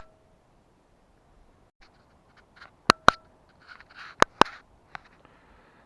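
Several sharp clicks, two of them in quick pairs, with a few short soft scrapes between them over a low hiss.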